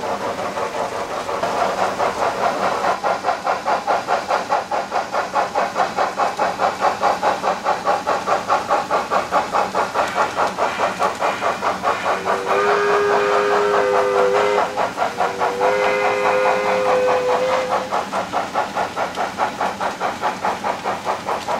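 Model steam locomotive sound from HO-scale Trix H6 Mikados: steady rhythmic chuffing with hiss as the train runs, and two long chime-whistle blasts in the second half, each about two seconds.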